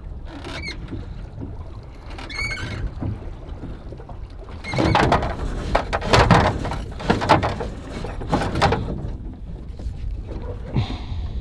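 Small rowboat being rowed: two short squeaks from the oars in their oarlocks near the start, then four splashing oar strokes about a second apart, the loudest part, over a steady low rumble of wind and water.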